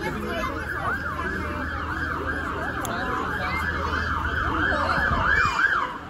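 Fire engine siren on a fast up-and-down yelp, about two and a half sweeps a second, growing louder as it approaches and cutting off near the end.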